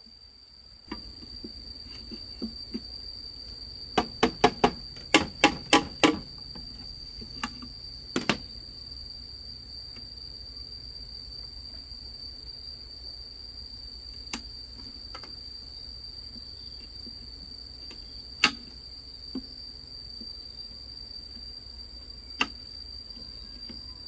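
Wooden mallet knocking a wooden peg into a bamboo pole. A quick run of about ten knocks comes four to six seconds in, then a few single knocks. A steady high insect drone runs under it.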